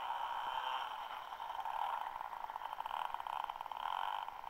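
Radio-controlled model airplane's engine and propeller buzzing steadily as it flies past.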